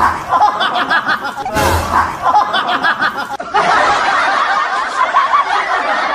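Several people laughing and giggling in quick repeated bursts, with a short burst of noise about one and a half seconds in. The laughter changes in tone a little after three seconds.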